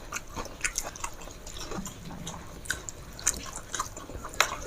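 Wet eating sounds as rice and chicken curry are chewed: a scatter of small, sharp smacks and clicks, one louder click near the end.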